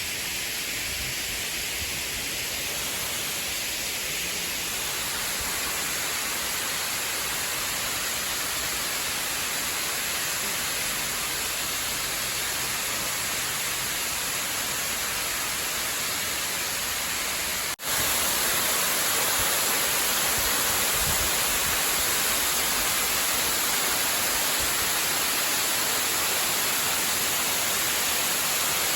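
Steady rushing hiss of water, unbroken except for a brief dropout about 18 seconds in, after which it is a little louder.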